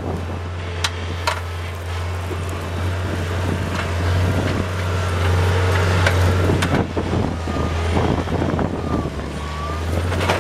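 Bobcat 743 skid steer's engine running steadily under load as its root-digger bucket digs into a small tree's roots, louder through the middle, with scattered sharp knocks and a faint whine that rises and falls.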